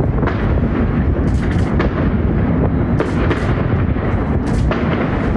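Aerial firework shells bursting in a dense, continuous barrage: overlapping booms with sharp cracks about twice a second.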